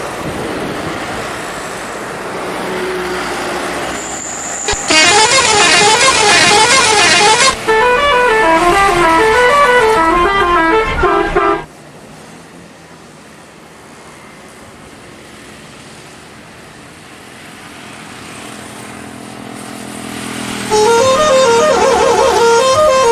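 Indonesian 'telolet' musical bus horn playing quick stepped melodies that jump up and down in pitch, from about five seconds in until nearly halfway, and again near the end. Road and engine noise from passing traffic fills the gaps.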